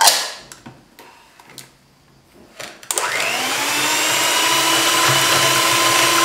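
A brief clatter at the start, then an electric hand mixer switched on about three seconds in. Its motor whine rises as it speeds up, then runs steadily while the beaters whisk eggs and sugar in a plastic bowl.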